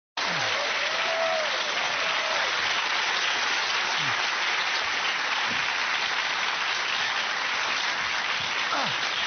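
Studio audience applauding steadily as performers take the stage.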